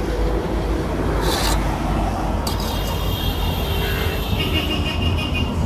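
An aluminium plate used as a lid is lifted off a pot of boiling water, with a brief scraping clatter about a second in, over a steady low rumble.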